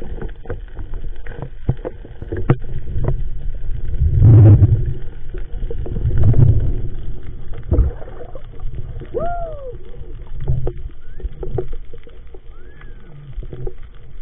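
Underwater sound beside a spearfisher at night: muffled low rumble of moving water, swelling louder twice, about four and six seconds in, with scattered clicks and a short rising-and-falling squeak near the middle.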